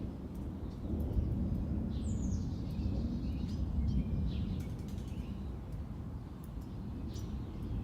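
Backyard birds chirping a few times over a steady low rumble; one call is a quick downward sweep about two seconds in, with further short chirps around the middle and near the end.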